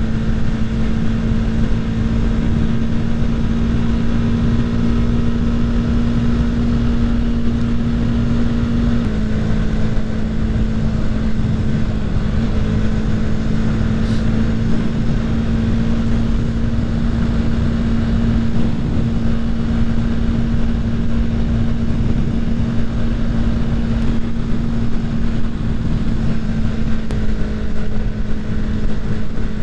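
Motorcycle engine running at a steady cruise, a constant drone that shifts slightly in pitch about nine seconds in, under heavy wind noise on the microphone.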